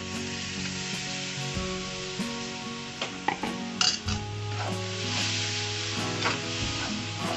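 Pieces of ol (elephant foot yam) frying with ground mustard masala in a pan, sizzling steadily as they are stirred, with a few sharp clinks of the stirring spoon against the pan, most of them between three and five seconds in.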